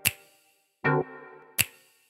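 Electronic intro music: a sharp drum hit, a short synth chord stab about a second in, and another sharp hit, each dying away quickly.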